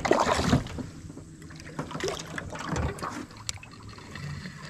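A small hooked bass splashing at the water's surface as it is reeled in, loudest in the first half-second, then smaller scattered splashes.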